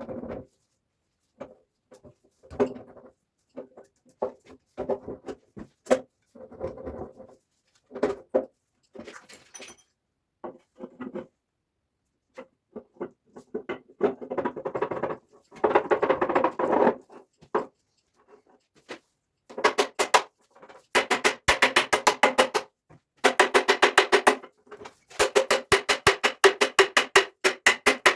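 Ringing metal clanks from parts being struck and handled during tractor differential and axle work, irregular at first. In the second half they turn into fast runs of tapping, several strikes a second.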